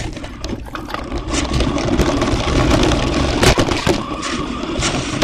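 RC car driving, heard from a camera mounted on it: a steady noise of its drive and wheels with many rattling knocks and clicks.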